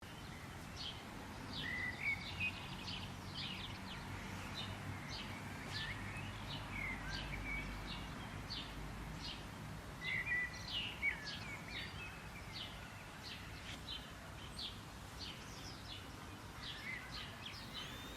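Several wild birds singing and calling together: many short, high chirps and trills overlapping, over a faint low background noise.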